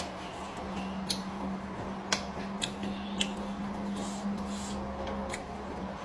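Eating sounds: chewing raw greens and petai beans, with a handful of sharp, crisp clicks at irregular intervals over a low steady hum.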